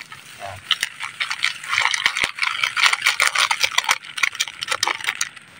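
A thin plastic bag and a foil drink-powder sachet crinkling and rustling in the hands as the powder is shaken out into the bag. It is a run of dense crackles, thickest in the middle.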